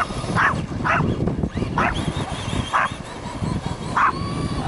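A dog barking in about six short, sharp barks at uneven intervals as it chases a radio-controlled monster truck. A steady low rumble and a faint high whine run underneath.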